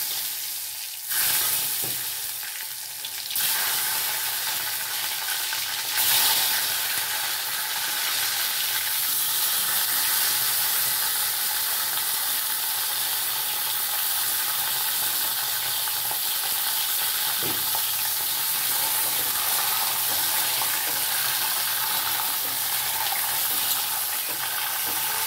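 Pieces of pointed gourd (patol) sizzling as they are dropped into hot oil in an aluminium kadai. The sizzle gets louder in steps over the first six seconds as more pieces go in, then holds steady.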